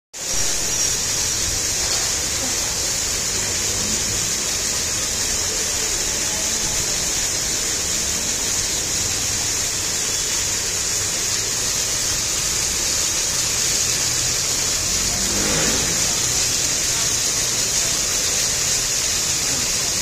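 Ornamental fountain's row of vertical water jets splashing back down into a shallow pool: a steady, bright rush of falling water.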